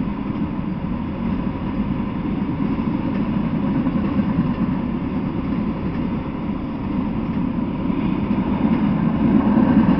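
Freight train of autorack cars rolling past at close range: a steady rumble of steel wheels on the rails, growing a little louder near the end.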